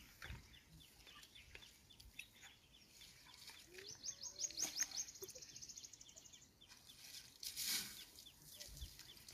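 Faint birds calling: repeated short high chirps, with a fast run of chirps about four seconds in. A short rushing noise comes near the end.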